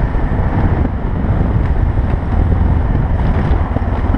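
Wind buffeting the microphone of a helmet-mounted camera on a moving motorcycle, a loud rough rumble with the bike's road and engine noise mixed in.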